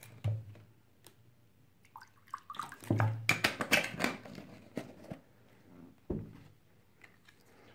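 Water poured from a large plastic bottle into a drinking glass, with knocks of the bottle and glass being handled and a single dull thump a little after six seconds in.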